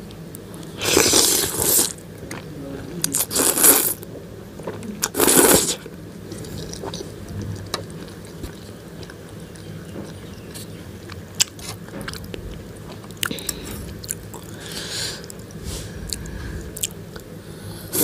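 Slurping soupy instant noodles, three loud slurps in the first six seconds and another at the very end. In between comes quieter chewing with a few sharp clicks.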